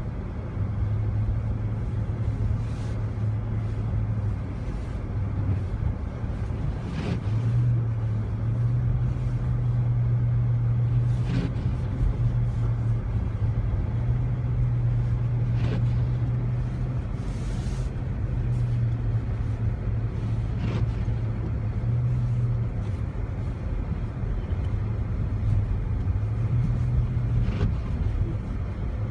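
Jeep Commander's engine and tyres droning steadily while driving through snow, heard inside the cabin. The pitch shifts slightly up and down with speed. A few brief knocks are scattered through it.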